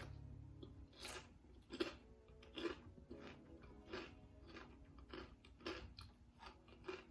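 A person biting and chewing a cream-cheese-stuffed jalapeño topped with crushed Takis chips, with faint crisp crunches a little more than once a second.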